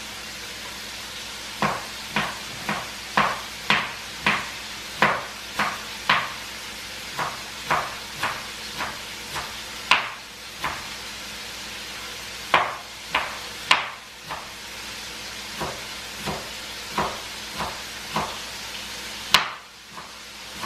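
A chef's knife chopping leafy green herbs on a cutting board. Sharp chops come about two a second in short runs, with brief pauses between runs.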